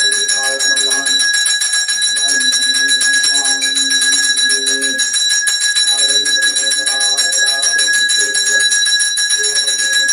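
Temple hand bell rung rapidly and without pause during an aarti, its bright ring holding steady throughout. Under it a voice chants mantras in long held notes.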